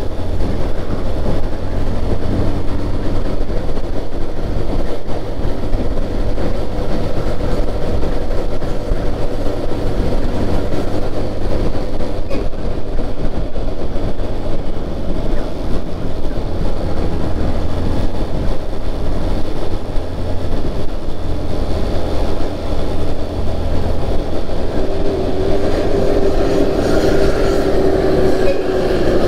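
Steady engine and road noise from a moving vehicle on the highway: a deep rumble with a constant hum over it, the hum growing stronger and slightly lower in pitch about 25 seconds in.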